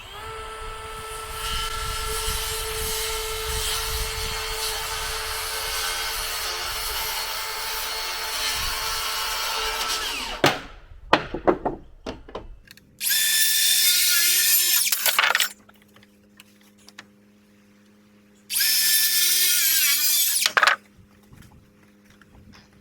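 Power drill driving screws into wood framing: one long run of about ten seconds, a few short spurts, then two shorter runs of about two seconds each.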